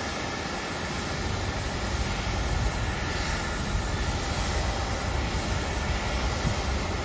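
Steady jet airliner noise from a parked Embraer 170: a low rumble with a thin high whine, growing a little louder about two seconds in.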